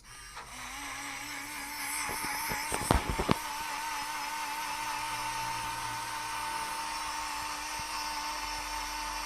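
Portable mini blender's small battery motor running with a steady, slightly wavering whine. The pitch steps up about half a second in, and a few sharp knocks come about two to three seconds in.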